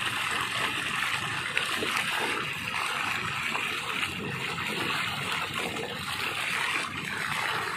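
Steady splashing and trickling of water as a fish-corral net is hauled in, with the catch crowded into the middle of the net.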